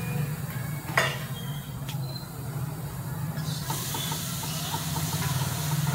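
Wooden spatula stirring ajwain (carom seeds) as they dry-roast in an iron kadai: a scratchy rustle of seeds against the pan with quick small ticks, starting after about three and a half seconds. Under it runs a steady low hum, and there is a sharp knock about a second in.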